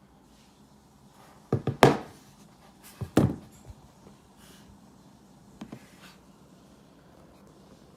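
Laptop keys struck in a few separate hard clacks rather than a steady run of typing. There is a quick burst of three about one and a half seconds in, two more around three seconds, and a fainter pair near six seconds.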